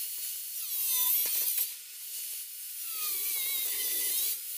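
A power grinder with a thin inox cutting disc cutting through plastic heel-pad sheet. It gives a high whine whose pitch sags as the disc bites in, about a second in and again around three seconds in.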